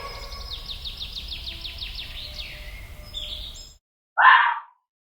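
A bird sings a rapid run of falling chirps, about seven a second, over low background noise. It cuts off abruptly after nearly four seconds, and a short, loud, noisy burst follows.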